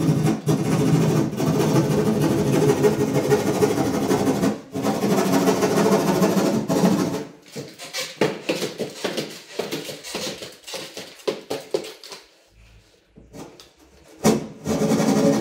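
A handheld power tool's motor running steadily, then cutting off abruptly about halfway through. Scattered knocks and clatter follow, then a brief lull, and the motor starts again near the end.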